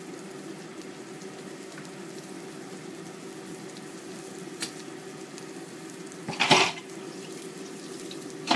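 Kitchen range hood fan running with a steady low hum, over the faint sizzle of onions frying in sesame oil in a stone pot. About six seconds in comes a brief, loud rush of noise.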